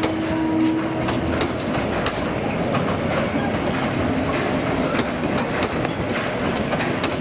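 Passenger train coaches rolling slowly past, their steel wheels clicking irregularly over rail joints over a steady rumble. A steady tone in the first second and a half then stops.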